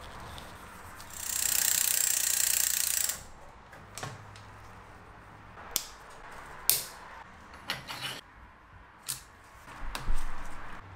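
Hand-tool and part handling on a hydraulic bicycle brake: a steady hiss lasting about two seconds, then scattered sharp clicks and ticks, bunched more densely near the end.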